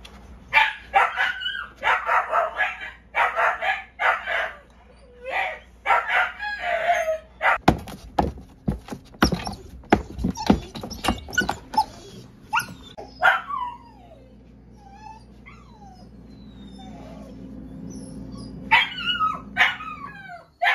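Crated puppies whining and yelping in a run of high, wavering cries. About halfway through, a wire crate's metal door latch rattles and clanks as it is worked open, followed by a few falling whimpers and yips.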